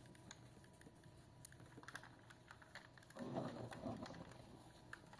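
Faint small clicks and rubbing as a cloth wipes over a diecast model car held in the hands. A brief, louder muffled sound comes a little past three seconds in.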